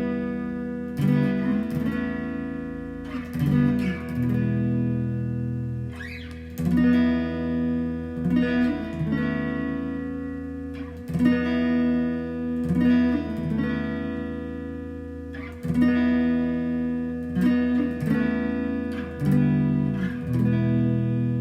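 Background music: guitar chords plucked every second or two, each ringing and fading away.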